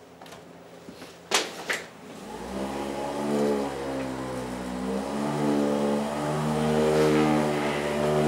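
Two sharp clicks, then about two seconds in an electric massager's motor starts and keeps running, its hum wavering up and down in pitch.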